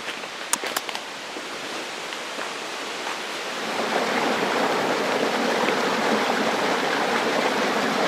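A rocky mountain stream running over boulders and small cascades: a steady hiss of rushing water that grows louder about halfway through. There are a couple of faint clicks near the start.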